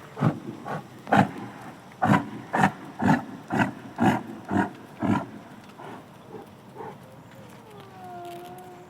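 A big cat giving a series of about ten short, loud grunting calls, roughly two a second, then falling quiet. Near the end a faint, thin call falls in pitch and levels off.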